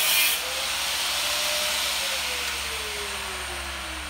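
A power tool running with a steady hiss, loudest in its first moment, while its whine slowly falls in pitch.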